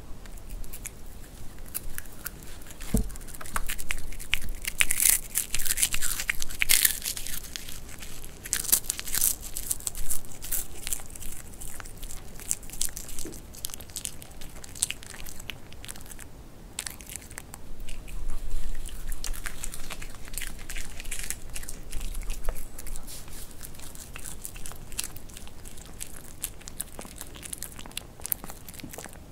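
A white Pomeranian crunching and chewing crisp vegetables, a close run of sharp crunches and bites, heaviest in the first third and again about two thirds through.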